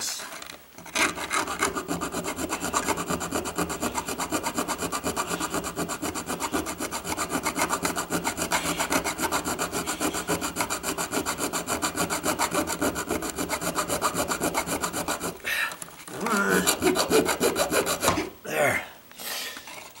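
A bare hacksaw blade, held in a gloved hand, sawing through a steel nail between a plastic electrical box and a wood stud in quick, short, even strokes. The sawing stops about three-quarters of the way through, followed by a few short, uneven scrapes.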